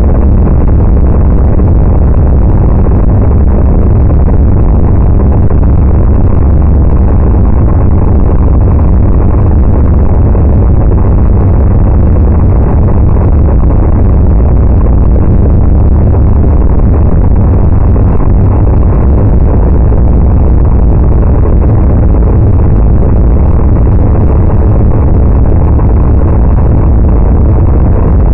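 Loud, steady low rumble of wind buffeting the phone's microphone, unbroken throughout.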